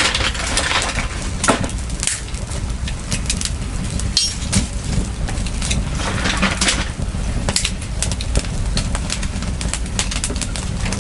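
Wood fire crackling, with irregular sharp snaps over a steady low rumble.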